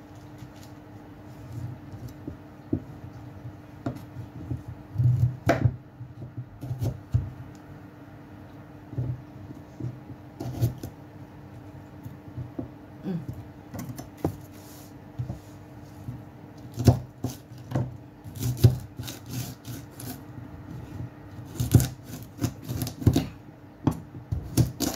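Kitchen knife cutting a carrot on a wooden cutting board: irregular knocks of the blade through the carrot onto the board, with some scraping, coming thicker in the second half.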